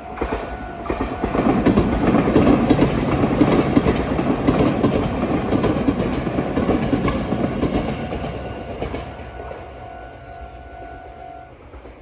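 Meitetsu electric train passing over a level crossing: its wheels clack over the rail joints under a heavy rumble that builds about a second in and fades away over the last few seconds. The crossing's warning bell rings steadily and stops shortly before the end.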